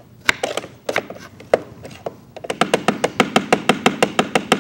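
Kitchen knife chopping strawberries on a wooden cutting board. A few scattered cuts come first, then from about halfway a quick, even run of about six to seven strokes a second.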